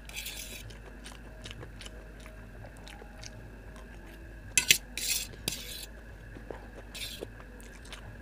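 A steel fork scraping and clicking against a stainless steel plate as noodles are gathered, with chewing of a mouthful of noodles. There are short scraping bursts near the start, a cluster of louder ones about halfway through, and another about seven seconds in.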